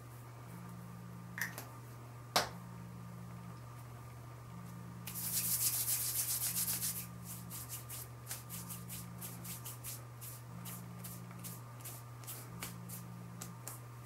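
Hands working skincare or makeup into the face: two small clicks, then about five seconds in a brief, louder rubbing of the palms together, followed by quick light pats of the hands on the cheeks. A steady low hum with a regular pulsing note runs underneath.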